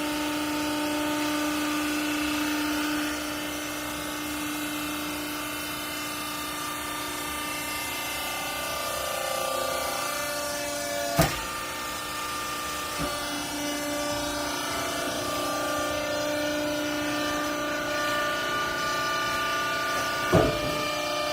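Hydraulic baling press for used clothing running steadily, its pump motor giving a continuous hum with several held tones that shift a little in pitch. Two sharp knocks stand out, about halfway through and near the end.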